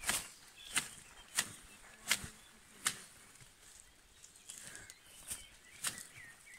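Hand tea-harvesting shears snipping tea shoots: a sharp click each time the blades close, about one every three-quarters of a second for the first few seconds. After a pause of about two seconds come two more snips near the end.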